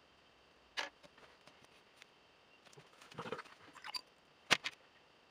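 A few small clicks and taps from drawing materials being handled on a desk, with a brief soft rustle about three seconds in; the sharpest click comes about four and a half seconds in.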